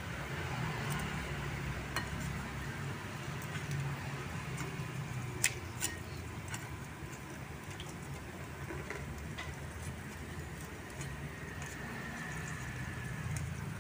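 Wood fire crackling, with scattered light ticks and two sharp pops about five and a half seconds in, over a steady low rumble.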